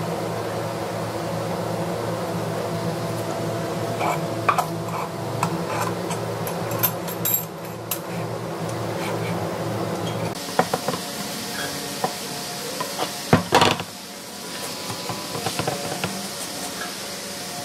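Metal screw bar clamps clinking and knocking as they are fitted and tightened across a glued-up wooden panel, over a steady low hum. The hum drops about ten seconds in, and a few sharp knocks follow a few seconds later.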